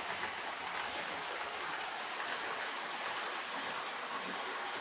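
Tri-ang Hornby M7 tank locomotive and its coaches running on 00 gauge model railway track: a steady rolling noise of wheels on rails and the small electric motor.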